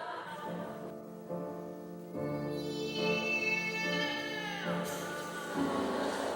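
Background music of long, held instrumental notes, with a falling glide and a change of note near the end.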